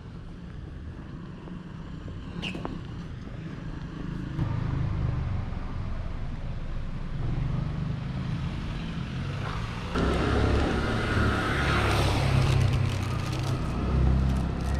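Outdoor city street ambience: a steady low rumble, like traffic, that gets louder about four seconds in and again about ten seconds in, when a wider hiss of street noise joins it. A brief high chirp sounds a couple of seconds in.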